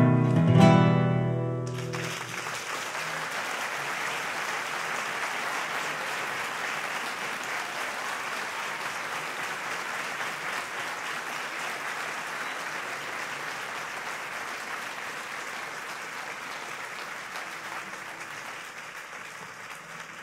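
Classical guitar's last chords ring out and stop about two seconds in, and an audience then applauds steadily, slowly fading toward the end.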